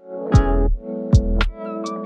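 Background music: an electronic beat with deep, pitch-dropping kick drum hits and sharp high percussion over sustained synth chords.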